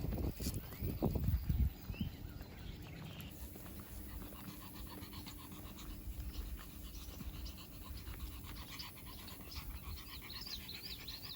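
A dog panting steadily, after a few low bumps in the first two seconds.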